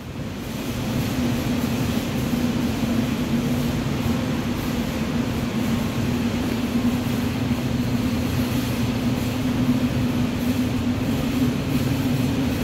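Seoul Subway Line 7 train running through the station area, heard from behind closed platform screen doors. It is a steady rumble with a constant low hum, swelling up in the first second and then holding level.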